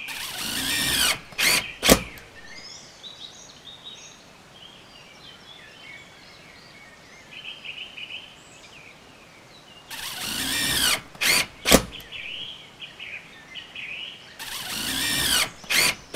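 Three bursts of a power tool, each about a second long with its pitch swinging, and each followed by two sharp clicks: near the start, about ten seconds in, and near the end. Birds chirp throughout.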